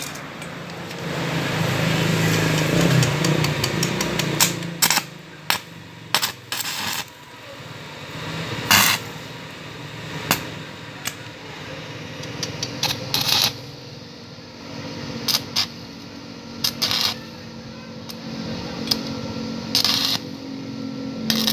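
Stick (arc) welder crackling and popping in short, irregular spells as the electrode lays small weld dots on a snapped exhaust stud in a motorcycle cylinder head, building the stud up above the surface. A low steady hum joins about halfway through.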